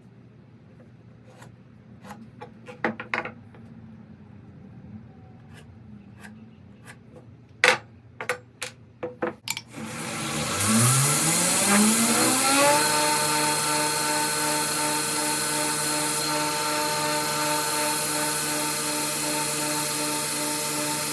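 Several light clicks and knocks of handling, then about ten seconds in an electric belt grinder switches on, its motor whine rising as it spins up and then running steadily.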